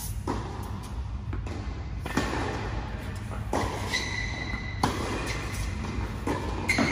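Tennis balls struck by rackets and bouncing on a hard court during a rally: a string of sharp pops, about one a second, over a steady low hum.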